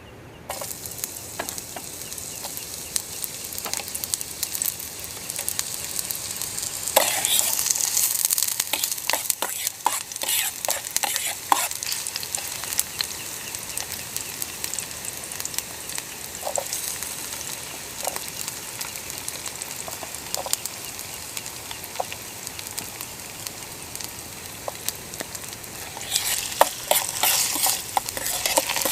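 Frying sizzle with many small crackles and pops, growing louder about seven seconds in and again near the end.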